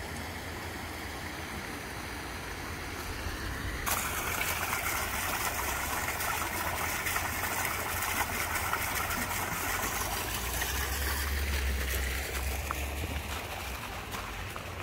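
Water splashing from a small garden fountain jet into its pool, starting suddenly about four seconds in and easing off near the end.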